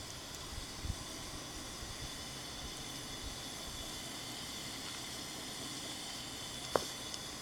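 Steady whirring hiss of a fan heater running. There is a soft knock about a second in and a sharp click near the end.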